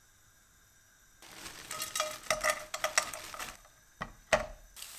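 Frozen mushrooms and spinach clattering and sizzling in a frying pan for about two seconds, followed by two sharp knocks on the pan about four seconds in, and a steady sizzle starting near the end.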